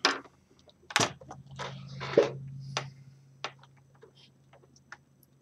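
Hands handling the plastic screen bezel of an HP 2000 laptop: a series of sharp plastic clicks and knocks with short scraping rustles between them, the loudest click a little over two seconds in.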